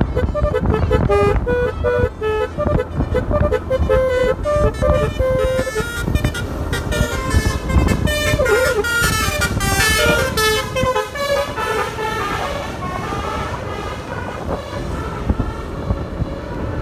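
Basuri multi-tone telolet horn on a motorcycle playing a melody of short stepped notes, over a low engine and road rumble. The notes are crisp for the first several seconds, then run together and blur, and grow weaker after about eleven seconds.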